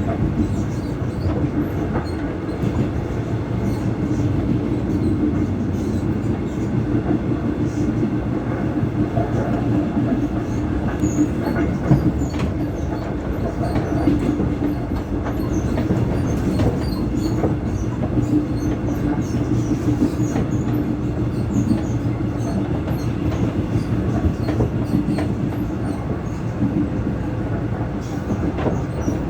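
Taiwan Railways EMU600 electric multiple unit running at speed, heard inside the car: steady rolling noise with clicks of the wheels over the track and a steady hum. The motor car's traction-motor sound is carried into the trailer car through the PA speakers, which were left switched on by mistake.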